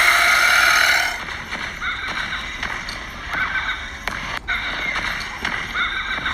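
An animal giving a series of short high cries that rise and fall in pitch, spaced out over several seconds. A louder, fuller sound fills the first second.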